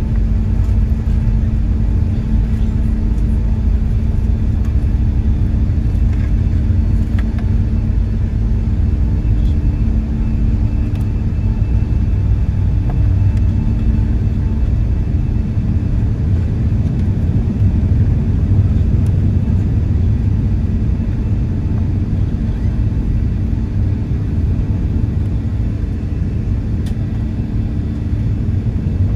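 Airbus A380 cabin noise heard from an upper-deck economy seat: a steady, deep drone of engines and airflow with two low hums held throughout.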